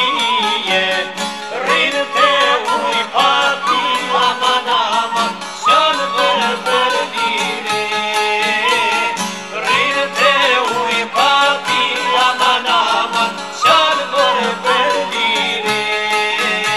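Albanian traditional folk music: long-necked lutes plucked in a fast, steady rhythm under an ornamented, wavering melody line, continuous throughout.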